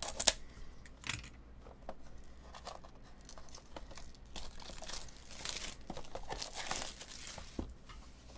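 Plastic shrink wrap being torn open and peeled off a trading-card box, crinkling and crackling: a sharp crackle at the start, then a denser stretch of crinkling about halfway through.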